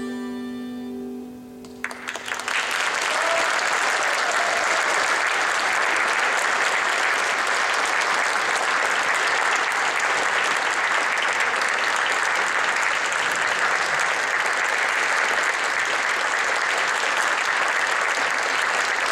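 The last held note of a song, a man's voice with piano and acoustic guitar, fades out. About two seconds in the audience breaks into applause, which goes on steadily.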